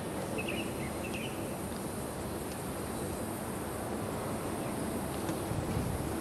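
Steady outdoor background noise with two short bird chirps about half a second and a second in.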